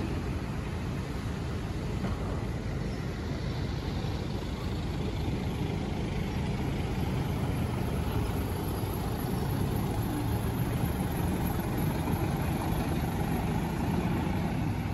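Street noise with a steady low rumble of vehicle engines and traffic, growing slightly louder toward the end.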